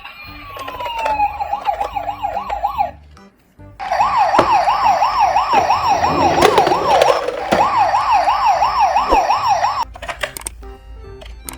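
Toy ambulance and police car sirens: a short falling wail, then an electronic siren warbling fast, rising and falling about three times a second. It breaks off briefly about three seconds in, comes back louder with a few knocks under it, and fades near the end.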